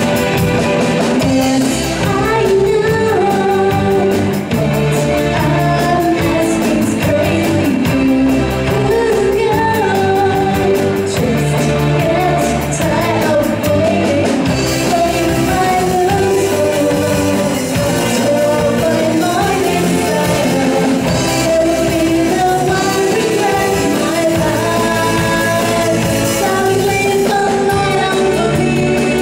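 A live rock band playing, with a woman singing lead over electric guitars, bass, drums and keyboard.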